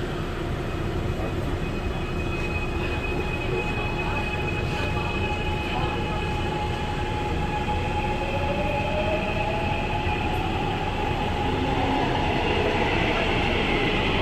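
Gwangju Metro Line 1 subway train running between stations, heard inside the car: a steady rumble of wheels on rail with a motor whine. The whine rises in pitch about two-thirds through, and the noise grows a little louder near the end.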